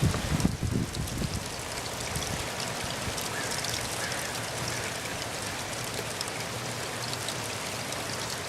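Steady rain falling, an even hiss with scattered small drops ticking through it. A few low thumps come in the first second.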